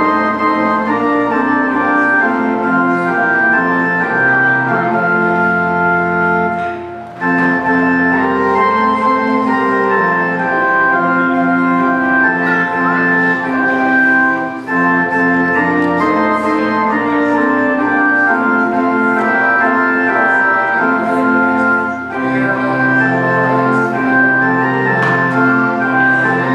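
Organ playing slow, held chords that change every few seconds, with a brief break about seven seconds in.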